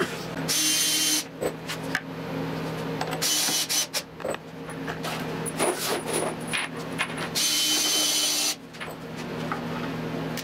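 Cordless drill/driver running in three short bursts, driving screws into the wooden CNC frame parts. Small clicks and knocks from handling the screws and parts come between the bursts.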